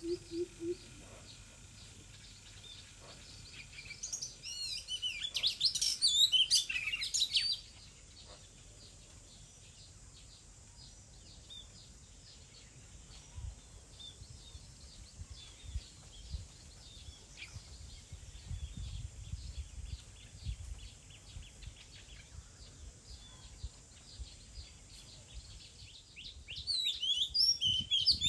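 Oriental magpie-robin singing: a burst of rapid, varied whistled phrases about four seconds in and another near the end, with softer scattered chirps between. A low pulsed hooting fades out in the first second, and a low rumble comes through in the middle.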